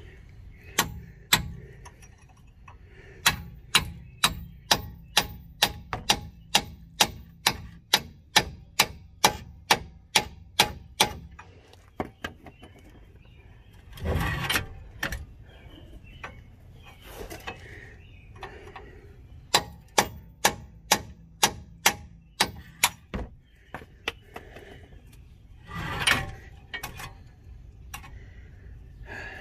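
Hammer striking a steel chisel wedged in the slot of a 2012 Subaru Legacy's front steering knuckle, metal on metal, in steady runs of about two blows a second, driving the slot open to free the lower ball joint's stud. Two louder, longer noises break in midway and near the end.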